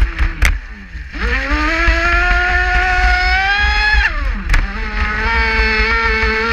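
Traxxas Spartan RC speedboat's electric motor whining as it runs, heard from on board. The pitch drops sharply as the throttle is cut at the start, climbs back over about a second, dips again about four seconds in, then holds steady. A low rumble of wind and water on the onboard microphone runs underneath.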